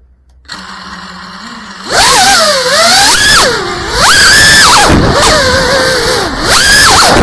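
Cinelog 35 cinewhoop's brushless motors: about half a second in they spin up to a steady low idle after arming, then from about two seconds in they whine loudly on takeoff, the pitch sweeping up and down with the throttle.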